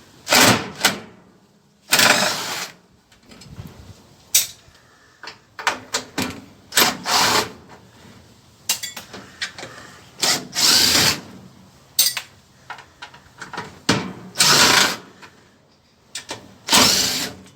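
Power drill-driver run in about a dozen short bursts, backing screws out of a microwave's sheet-metal casing.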